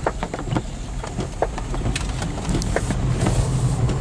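Inside a car driving in heavy rain: irregular taps of raindrops on the windshield and roof over the steady low hum of the car and its tyres on the wet road.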